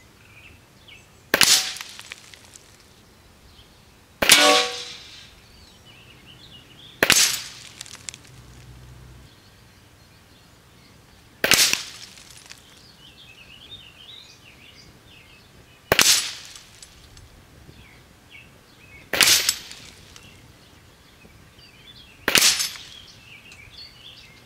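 Seven single shots from a Savage .22 LR rifle, spaced about three to four seconds apart. The second shot is followed by a brief metallic ringing.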